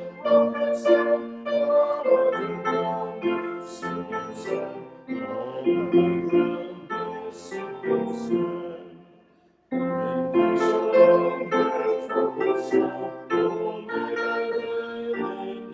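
Church music on a keyboard instrument, held chords moving from note to note. It fades out about eight seconds in and starts again abruptly a second later.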